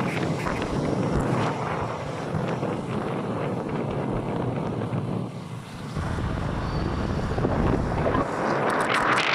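Wind rushing over the microphone of a moving motorcycle, with engine and road noise underneath; the noise eases for a moment about five and a half seconds in.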